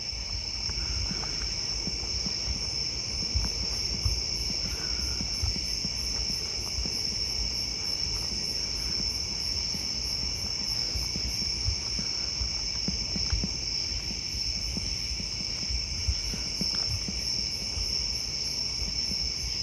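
Chorus of night insects trilling steadily and shrilly, with a higher, rapidly pulsing call of a few beats a second that fades in and out twice.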